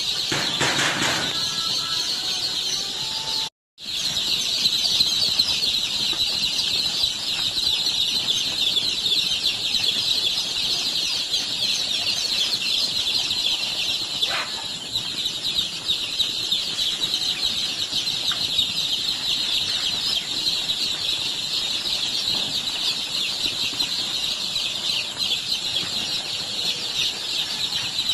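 A dense, continuous chorus of many newly arrived chicks peeping, high-pitched and steady, with a brief break in the sound a few seconds in.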